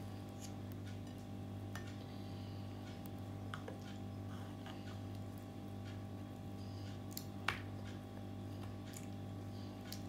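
Metal spoons lightly clicking and scraping on a glass plate as chocolate cream is spread onto a pancake, with one sharper clink about seven and a half seconds in. A steady low hum runs underneath.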